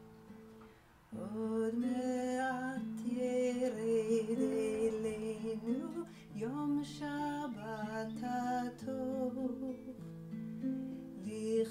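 Acoustic guitar played softly, joined about a second in by a woman's voice singing a melody without words, with the guitar getting louder at the same moment.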